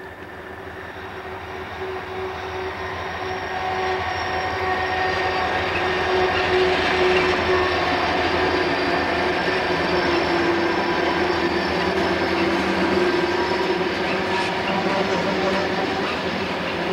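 Three Southern Pacific six-axle diesel locomotives, an EMD SD45T-2 among them, roll downgrade using their dynamic brakes. Their engines and brake equipment run with a steady hum and several held tones, growing louder over the first few seconds as the locomotives come close, then holding level as they pass. The wheels of the freight cars that follow sound on the rails.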